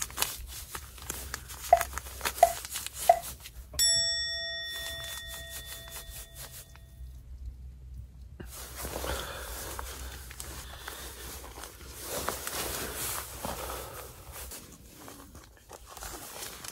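Clicks and handling noises with three short pitched chirps, then a single metallic ding about four seconds in that rings and fades over about three seconds. After a short hush, crinkly rustling and tearing noises.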